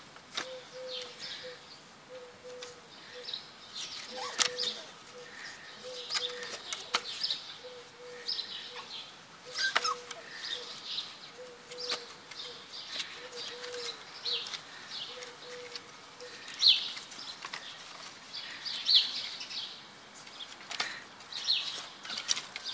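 Young beagle puppies yipping and whining, short high-pitched cries coming about once a second, with a few light knocks.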